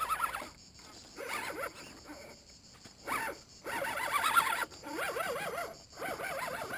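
Electric motor and gear whine of a 1/10 scale RC rock crawler, the pitch rising and falling in quick waves as the throttle is worked on a steep dirt climb. It drops away near the start and comes back in short spells before running on from about the middle.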